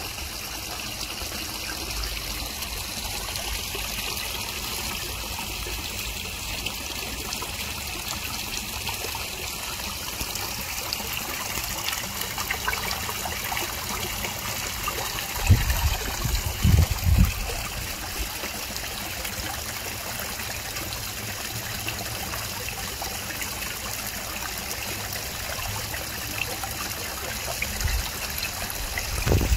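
Water from a pond waterfall pouring over rocks and splashing steadily into a koi pond. A few low thumps come about halfway through and again near the end.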